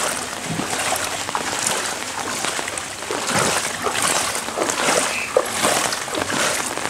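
Footsteps wading through floodwater on a street, an uneven run of splashes and sloshes.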